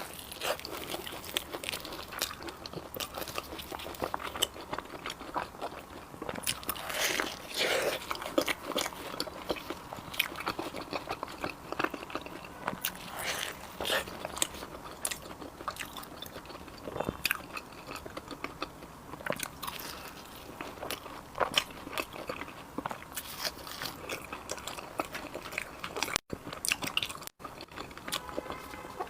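Close-up mouth sounds of biting and chewing deep-fried glutinous rice cakes with black sesame filling: irregular crisp crunches from the fried crust, with chewing between bites.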